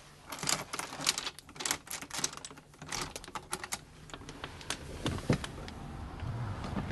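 Handle and latch of a glass balcony door clicking and rattling in quick succession as the door is worked open, with a couple of louder knocks. Steady outdoor city noise rises once the door is open.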